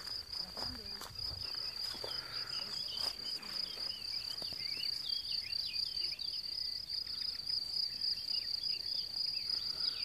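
Crickets trilling in one continuous high-pitched drone, with many short chirping notes over it.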